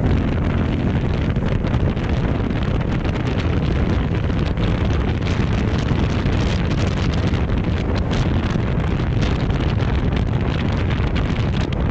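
Wind buffeting an action camera's microphone on a motorcycle moving at about 70 km/h, a steady loud rush with the bike's running noise underneath.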